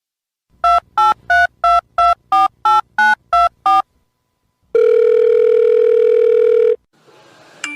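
Telephone keypad touch tones dialing a ten-digit number, each beep short and evenly spaced at about three a second, followed by one steady tone lasting about two seconds.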